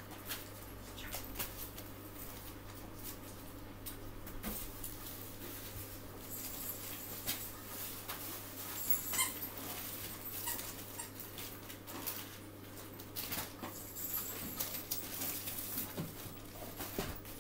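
A dog moving about close by, with scattered light clicks and rustling.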